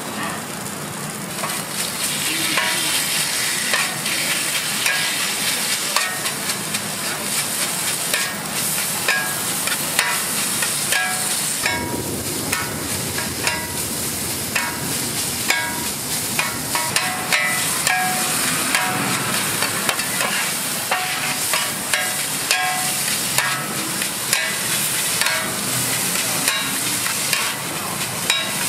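Fried rice with bean sprouts sizzling on a hot flat griddle while two metal scrapers chop, scrape and toss it. The blades strike and scrape the plate over and over in quick, uneven clacks, some with a short metallic ring.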